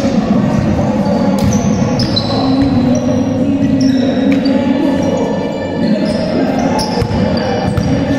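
A basketball being dribbled on a sports-hall court, the bounces echoing in the large hall. Players' shoes squeak on the floor many times as they run.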